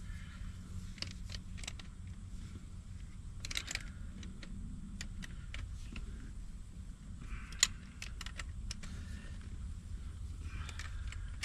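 A steady low engine drone, with scattered light metallic clicks and clinks from hand work on a water pipe coupling and a sharp click about halfway through.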